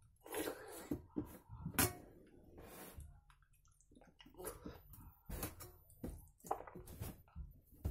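Wet eating sounds: fena bhat, rice in its starchy cooking water, eaten by hand, with slurping and chewing of mouthfuls and irregular squishing and clicking. Near the end fingers mash and mix the wet rice on a steel plate.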